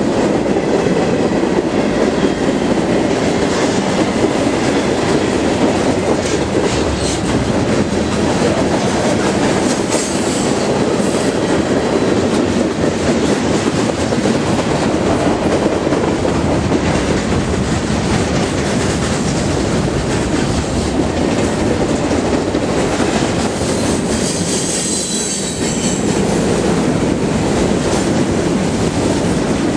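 A long train rolling past close by: a steady rumble of wheels on rail with clickety-clack over the rail joints, and brief high wheel squeals about ten seconds in and again near twenty-five seconds.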